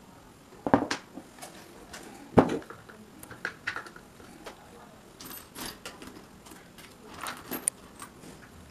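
Handling noise from a metal electric fan motor being picked up and turned over on a workbench: a knock just under a second in, a louder one about two and a half seconds in, then lighter clicks and rustling.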